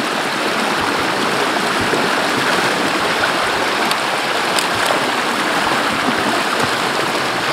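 Swollen creek water rushing steadily through a breach in a beaver dam. A couple of faint clicks come about halfway through.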